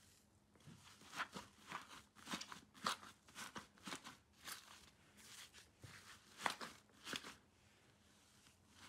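Faint white fluffy slime being stretched and squeezed by hand in a bowl, giving a quick run of short crackling pops and squishes that thin out near the end.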